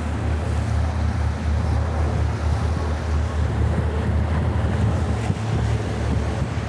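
Twin Yanmar marine diesel engines of a Mainship trawler running steadily at low speed, a constant low hum, with wind buffeting the microphone.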